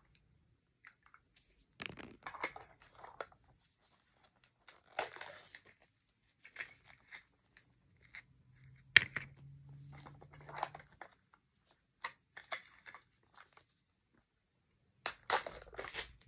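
Small wrappers from a Mini Brands surprise capsule being torn open and crinkled, in short bouts separated by pauses, with a single sharp click about nine seconds in.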